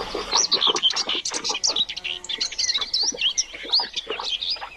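Small birds chirping: many quick, high chirps in close succession, with scattered short clicks and taps underneath.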